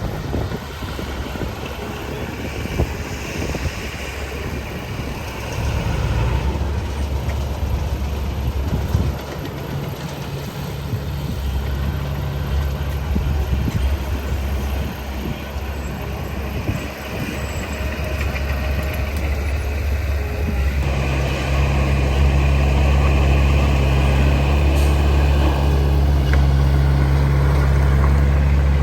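Heavy earthmoving machinery's diesel engine running, its pitch and load shifting now and then, and growing louder and steadier about two-thirds of the way through.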